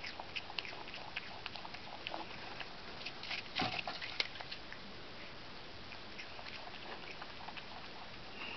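Common brushtail possum chewing a piece of fruit: a string of small crunching, smacking clicks, busiest in the first half and thinning out after about four seconds.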